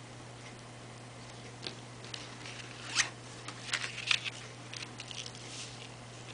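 Cardstock greeting card being handled and slid across a paper-covered work surface: a run of short paper rustles and scrapes starting a couple of seconds in, the sharpest about three and four seconds in. A faint steady low hum runs underneath.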